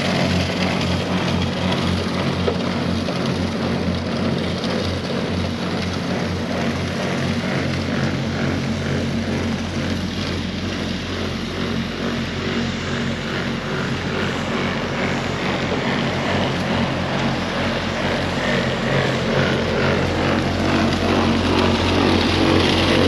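Work truck's engine and salt spreader running steadily, a continuous drone while salt is being thrown across the lot.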